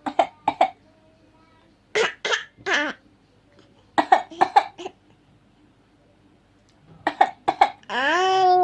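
A six-month-old baby fake-coughing on request: short, breathy coughs in four clusters of two to four, with pauses between. Near the end a drawn-out voiced sound starts and rises in pitch.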